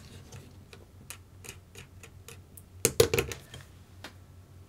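Light, irregular clicking of small plastic RC-car suspension parts handled at close range, about three or four clicks a second, with a louder clatter of parts about three seconds in, as the rear springs and their tension adjusters are fitted.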